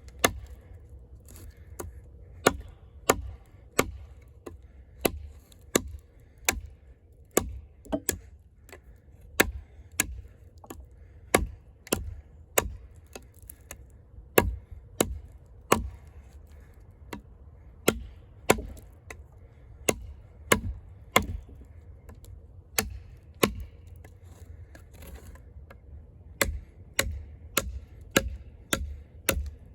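Eafengrow EF-143, a heavy fixed-blade camp knife with a 6.7-inch AUS-10 steel blade, chopping into a log with repeated sharp strikes a little over one a second. The blade is cutting through the log's core, nearly through.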